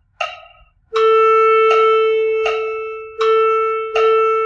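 Rhythmic dictation played back by an ear-training web page. The last of four wood-block count-in clicks sounds, then one pitch is held for three beats as a dotted half note, then two quarter notes follow on the same pitch. A click marks each beat at a slow andante pace.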